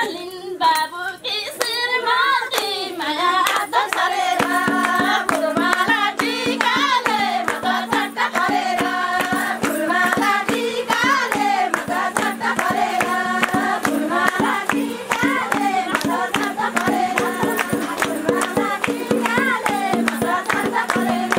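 A group of women singing a folk song together with rhythmic hand-clapping. A steady low drone joins the singing about four seconds in.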